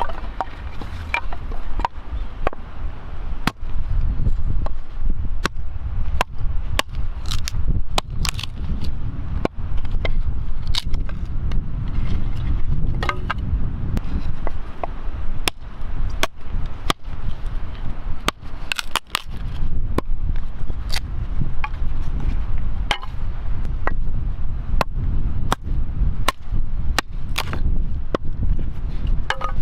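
Firewood giving sharp cracks and pops at irregular intervals, roughly one or two a second and varying in strength, over a steady low rumble.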